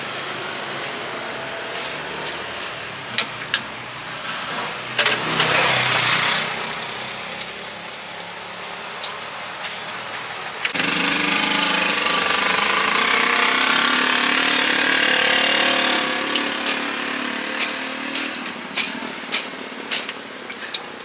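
Street-side traffic noise of vehicle engines running and passing, loudest in a steady stretch from about 11 to 16 seconds. Scattered sharp metallic clicks sound throughout, from utensils at a deep fryer.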